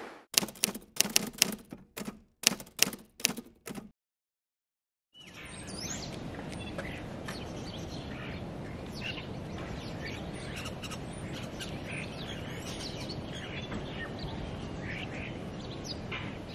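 Small birds chirping and twittering over a steady outdoor background hiss. In the first four seconds, before a short silence, comes a quick irregular series of sharp knocks.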